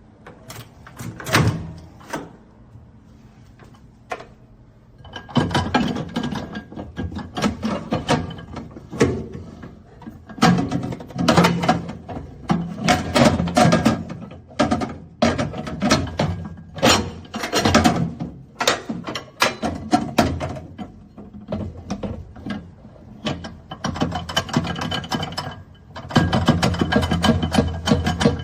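Irregular handling noise: many clicks, knocks and thunks with rustling, in dense runs from about five seconds in, as the compact countertop microwave oven is handled and worked.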